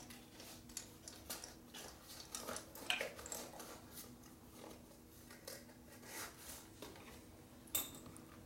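Faint, scattered clicks and light metallic taps of hand tools and spark-plug parts being handled on a motorcycle engine, with a sharper click near the end and a faint steady hum underneath.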